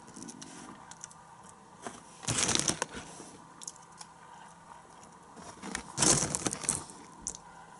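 Foil snack bag crinkling as a hand reaches in for popcorn, in two short bursts about two seconds in and again about six seconds in, with faint small rustles and clicks between.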